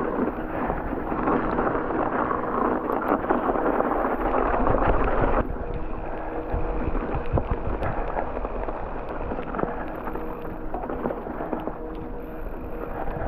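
Mountain bike riding over a frozen, snowy trail: tyre noise, rattling of the bike and wind on the microphone. The noise drops suddenly about five seconds in, leaving a quieter rumble with a faint steady hum and scattered clicks.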